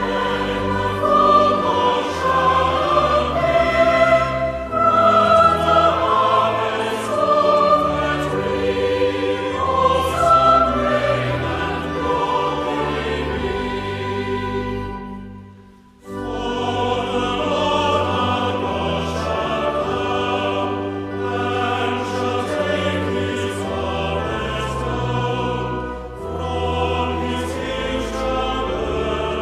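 Choir singing a hymn with accompaniment. The music fades away about fifteen seconds in and starts again a second later.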